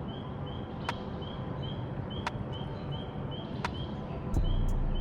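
Outdoor ambience with a short, high chirp repeating evenly, about three times a second, from a small animal. Sharp clicks come about every second and a half, and a low rumble sets in near the end.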